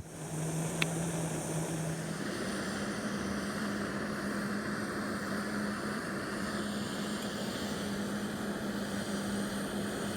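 Camp stove burner running steadily under a pot of water being heated for coffee: a steady hiss with a low hum that steps up in pitch about two seconds in, and a single click near the start.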